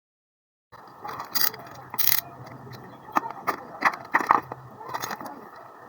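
A plastic bottle being handled and marked with a pen: a series of short scratchy strokes and clicks over a faint steady hum, starting just under a second in after dead silence.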